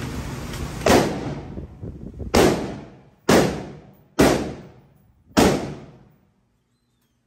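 Five shots from a Hi-Point 995 9mm carbine, about one to one and a half seconds apart, each followed by a fading echo.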